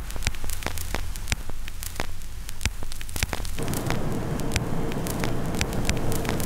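Crackling static over a low hum, a noise passage in the song's closing stretch: dense clicks and pops throughout. About three and a half seconds in, a thicker hiss comes in, carrying a faint steady tone.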